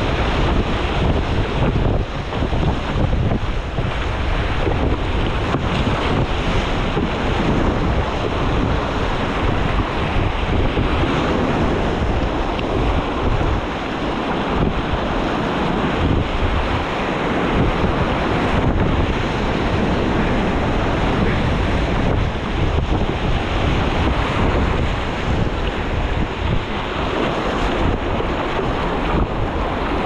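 Rushing whitewater splashing around a kayak on a fast river, a loud, steady churn with wind buffeting the microphone.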